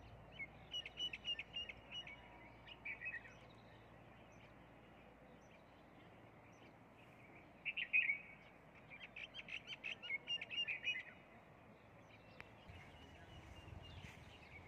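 Small songbird singing in two bouts of quick, high chirps, the first about half a second in and the second, louder one around eight seconds in, over faint outdoor background.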